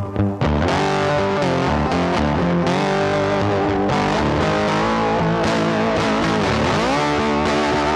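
Background music led by guitar, with notes that bend up and down in pitch.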